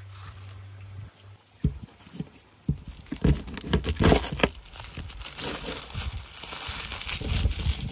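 A garlic bulb being split with a cleaver on a wooden cutting board: the dry papery skins crackle and crinkle, with a run of sharp knocks as the blade and cloves hit the board.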